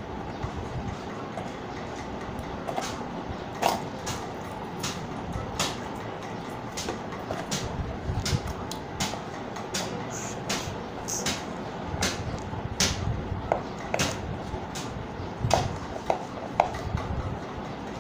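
Paper gift box being handled: irregular crinkles, taps and clicks of card as its flaps are opened and turned, over a steady background hiss.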